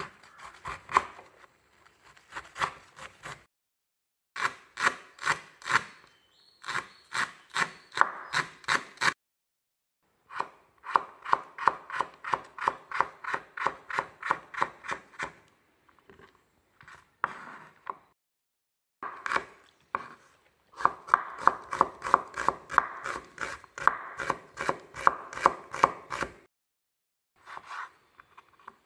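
Chef's knife chopping vegetables on a wooden cutting board: shredding cabbage, slicing potatoes, then cutting tomatoes. The knife knocks about four or five times a second in runs of several seconds, with short pauses between them.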